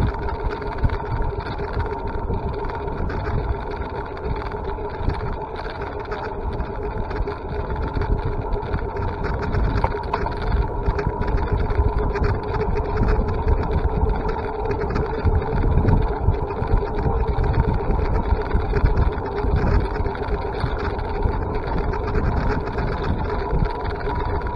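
An e-bike motor whining steadily while riding, over a continuous low rumbling noise.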